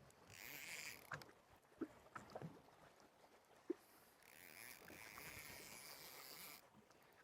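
Near silence: faint hiss that swells twice, with a few soft clicks.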